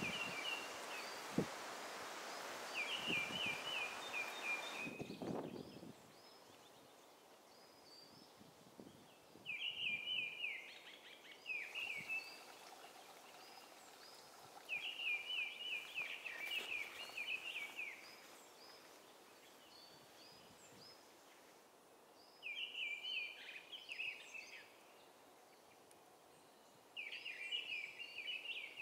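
A songbird singing a short, rapid trilled phrase of quickly repeated notes, repeated every few seconds. For the first few seconds there is also rustling and a few footfalls through vegetation.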